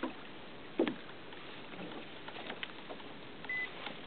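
Steady hiss of water and wind around a fishing kayak, with one soft knock about a second in, a few faint ticks, and a brief high beep near the end.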